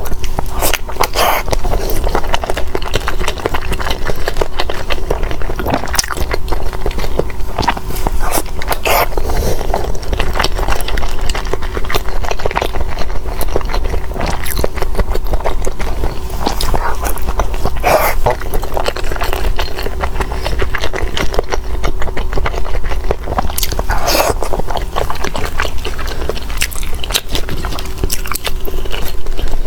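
Close-miked eating sounds: biting and chewing, with many short sharp clicks and crunches at an uneven pace.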